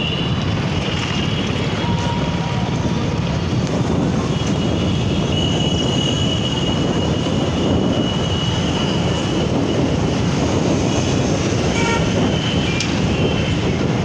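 Steady traffic and riding noise heard from a moving vehicle on a town road, with a faint high whine that comes and goes.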